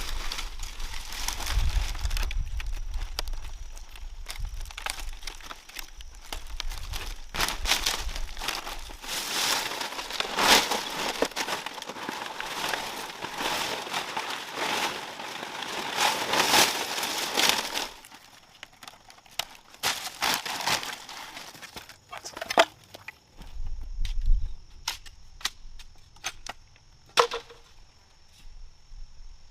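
Dense crackling and rustling for about eighteen seconds, then scattered sharp clicks and taps.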